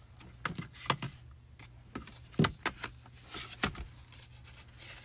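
Cardstock being handled on a craft mat: several sharp taps and knocks as card is picked up and set down, with a short sliding rustle about three and a half seconds in.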